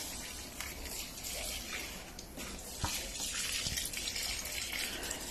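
Water being poured onto potted plants and their soil: a steady splashing hiss.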